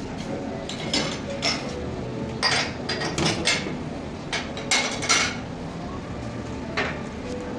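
Dishes and cutlery clinking and clattering over a steady hum of restaurant background noise, with a quick run of sharp clinks in the middle and one more near the end.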